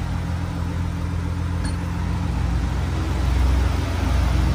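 VW Amarok 3.0 V6 turbodiesel, remapped to stage 2, idling steadily through a 3-inch straight-through stainless exhaust with no muffler: a low, even drone.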